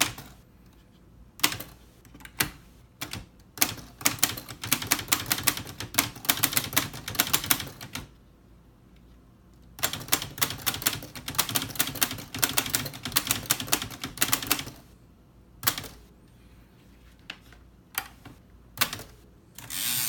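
1948 Olivetti MP1 manual typewriter being typed on in capitals: typebars striking the platen in two fast runs of clatter with a pause of about two seconds between, and slower single strokes before and after.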